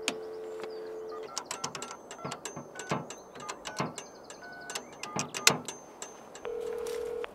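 Payphone handset sounds: a steady dial tone for about the first second, then a run of touch-tone keypad beeps and button clicks as a number is dialled, and a steady ringing tone starting near the end.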